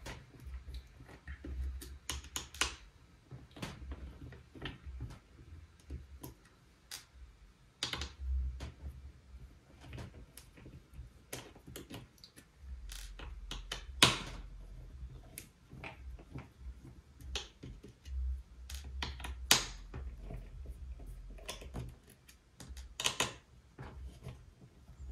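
Irregular small clicks and taps of a precision screwdriver and fingers working tiny screws out of a MacBook's metal top case. A few clicks are louder than the rest.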